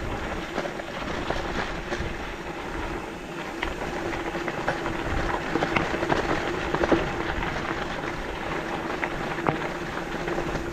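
Mountain bike rolling over a rough trail: a steady rumble of tyres with many sharp rattles and clicks from the bike.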